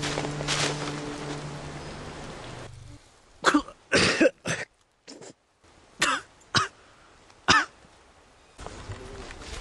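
Background music with held low notes stops about three seconds in. Then a wounded man coughs about half a dozen times, in short harsh coughs, coughing up blood.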